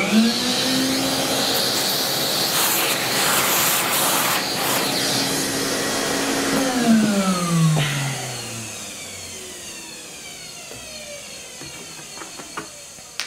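Small vacuum cleaner switched on, its motor spinning up and running at a steady pitch to pick up filing dust. After about six and a half seconds it is switched off and winds down over a couple of seconds, with a few light clicks near the end.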